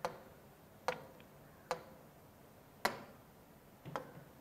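Stylus pen tapping on the glass of an interactive touchscreen board: five sharp, separate clicks about a second apart.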